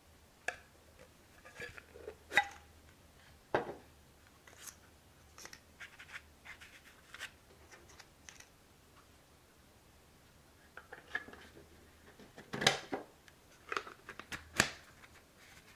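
Hands handling a clear plastic tube case with metal end caps and its insert: scattered light clicks, taps and scrapes of plastic, with a few sharper knocks, two within the first four seconds and a cluster near the end.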